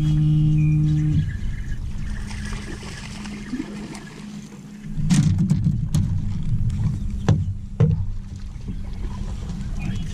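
Background music ends about a second in, giving way to a low wind rumble on the microphone with a faint steady hum. In the second half come louder, splashy sounds and several sharp knocks as a hooked bass is fought beside a bass boat's front deck and netted.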